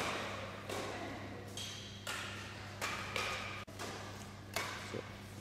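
Badminton rackets hitting a shuttlecock in a drop-shot rally: several sharp taps at uneven spacing, each echoing briefly in a large hall.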